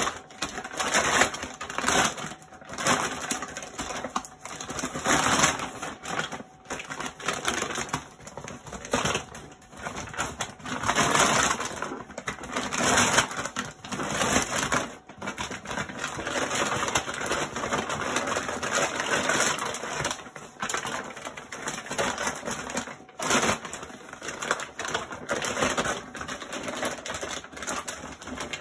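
Woven plastic feed sack crinkling and rustling in irregular bursts as it is handled and turned inside out.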